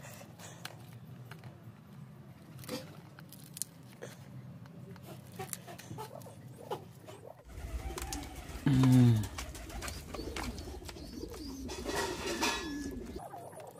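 A hand squishing and mixing mashed roasted eggplant in a small steel bowl, faint soft clicks and squelches. About nine seconds in, a bird gives a short, low cooing call that falls in pitch, the loudest sound here, and more cooing follows near the end.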